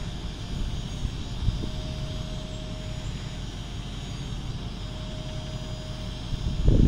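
Steady droning of a dump truck's engine and hydraulic hoist as it holds the loaded bed raised, with a faint whine coming and going twice. A short, louder low rumble comes near the end.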